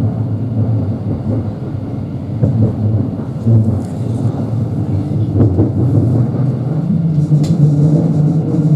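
Thameslink Class 700 electric train heard from inside the carriage while running, a heavy, steady low rumble of wheels and running gear. A steadier hum joins in about seven seconds in.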